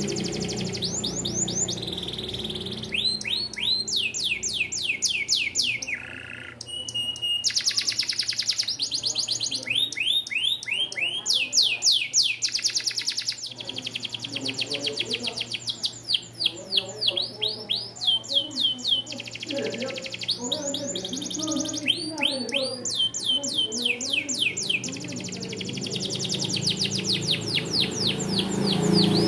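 Canary singing a long song of fast trills and repeated rising-and-falling notes, phrase after phrase with brief breaks between.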